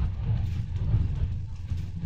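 Steady low rumble of a moving bus heard from inside its cabin: engine and road noise.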